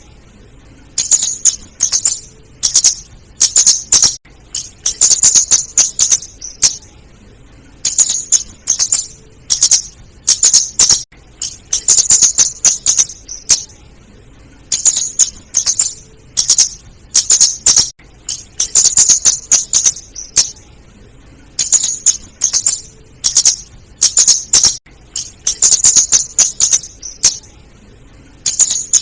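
Female flowerpecker calls used as a trapping lure: bursts of rapid, sharp, high-pitched ticking chips, each burst about a second long, repeated over and over with short pauses.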